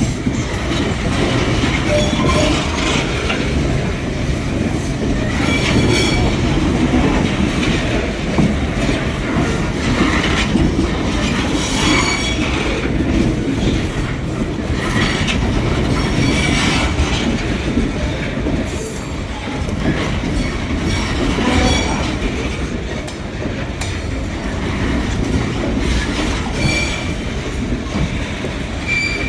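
Metre-gauge freight train wagons rolling past: a steady rumble of steel wheels on rail with clickety-clack over the rail joints, and short high-pitched wheel squeals every few seconds.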